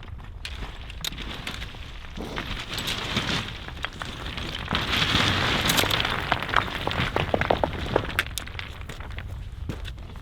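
Footsteps pushing through brush: rustling, with many sharp twig and branch snaps, loudest from about five to eight seconds in.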